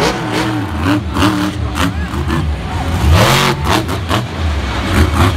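Monster truck's supercharged V8 engine revving in repeated surges, with one strong rev rising and falling a little past halfway.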